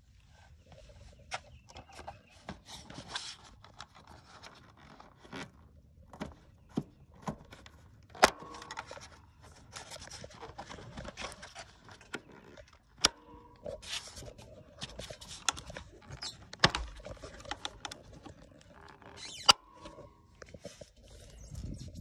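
Hands handling parts of a zero-turn mower around its air cleaner: scattered clicks, scrapes and knocks of plastic and metal, with a few sharp snaps spread through.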